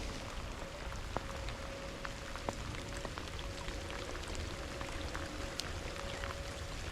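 Rain falling steadily, with many individual drops tapping sharply close by.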